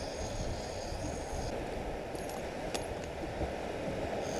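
Steady surf and wind noise on the beach, with a distant fishing reel's drag screaming high-pitched until about a second and a half in: a shark taking line off the reel.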